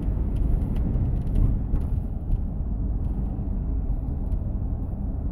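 Steady low rumble inside a car's cabin: the car's running and the blizzard wind buffeting it.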